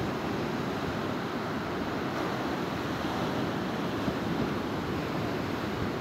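Black Sea surf breaking and washing up a sandy beach: a steady rush of breaking waves and foam.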